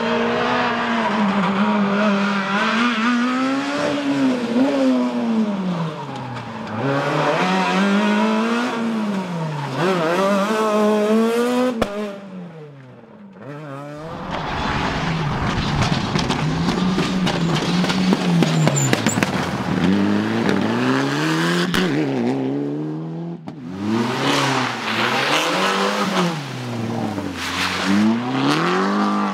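Rally cars at full throttle on a loose-surface stage, in three passes one after another. Each engine revs up and drops again over and over as it shifts gear and lifts off. The first car is a Peugeot 207 S2000 and the last an Opel Corsa.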